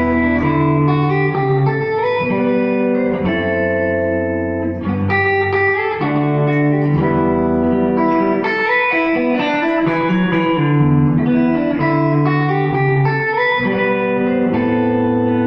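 Solo electric guitar played fingerstyle, with low bass notes ringing under a melody line.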